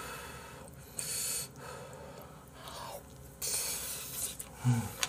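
A man eating close to the microphone: chewing with loud breaths through the nose in two main hissy swells, and a brief low hum near the end.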